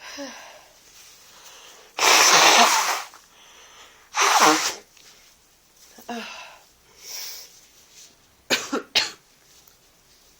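A person with a heavy head cold sneezing and coughing. There are two loud bursts about two seconds apart, a few weaker ones, then two short sharp ones in quick succession near the end.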